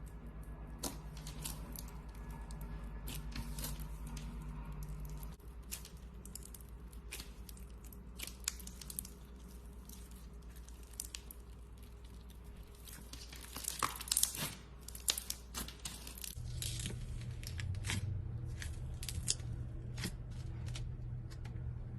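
Packaging crinkling and tearing as it is handled, with scattered sharp clicks and rustles that are busiest a little past the middle, over a steady low hum.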